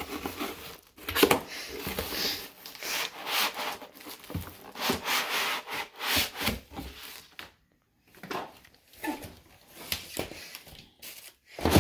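Cardboard, foam and plastic wrapping rubbing and crinkling as a laptop is slid out of its box. The scraping runs steadily for about seven seconds, breaks off, then gives way to a few scattered rustles and knocks.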